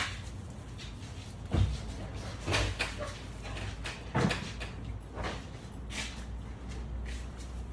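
Mini pigs scuffling and shoving, with several sudden thumps and knocks as bodies bump into things, the loudest about one and a half, two and a half and four seconds in.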